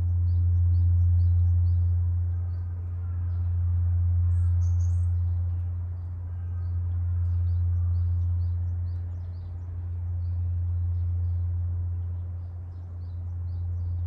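Large Japanese bronze temple bell (bonshō) humming after a strike: a deep, steady low tone that swells and fades about every three seconds as it slowly dies away. Small birds chirp over it.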